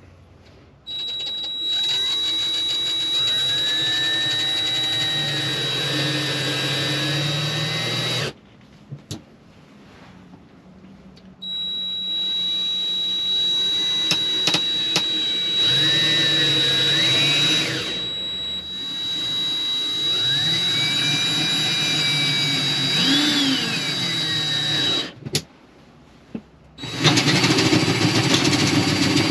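Power drill boring holes with a 1 1/8 inch spade bit. It runs in long stretches of several seconds, with a steady high whine, and its pitch rises and falls as the load changes. It stops briefly between holes. Near the end a louder, lower-pitched run starts.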